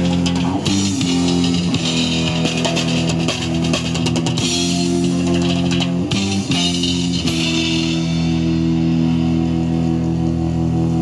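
Live rock band playing without vocals: electric guitars, bass guitar and drum kit with cymbal crashes. About seven seconds in the drums drop out and a held chord rings on.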